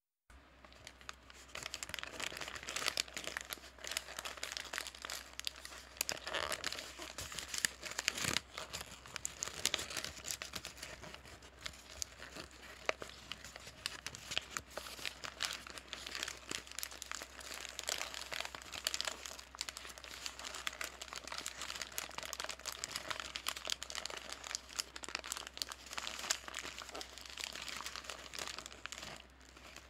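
Paper bag being crinkled and crumpled by hand: a dense, irregular crackle of crisp rustles that goes on without a break, starting just after a brief moment of silence.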